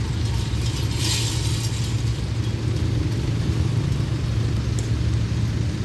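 Steady low rumble of road vehicles idling, with a brief hiss about a second in.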